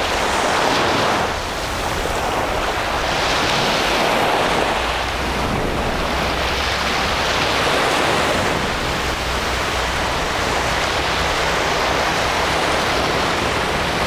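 Small Black Sea waves breaking and washing up a sandy beach. The surf rises and falls every few seconds.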